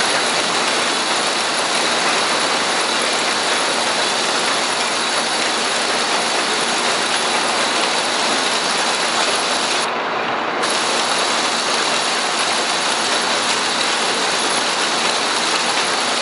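Sawmill lumber-handling line running: boards travelling over a roller conveyor and chain transfer deck amid a loud, steady wash of machinery noise.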